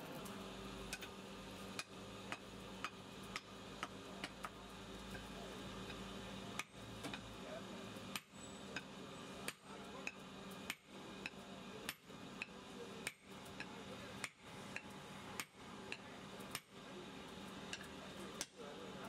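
Hot steel rebar being struck against an anvil and steel plate in blacksmith forging: sharp metal-on-metal blows about once a second, each with a short ring.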